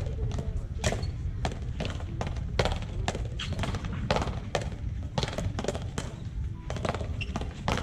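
Paleta frontón rally: the rubber ball struck by wooden paddles and smacking off the frontón wall, a quick irregular run of sharp knocks about two to three a second, over a steady low rumble.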